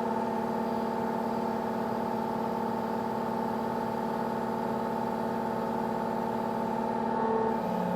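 Excavator diesel engine running steadily at a raised engine speed of about 2200 rpm during the scale calibration lifts. Its note shifts slightly lower near the end.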